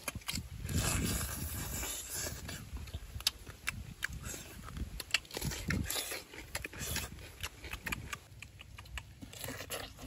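Close-up eating sounds: chewing and lip-smacking, with many small clicks and cracks as cooked crab shells are broken apart by hand.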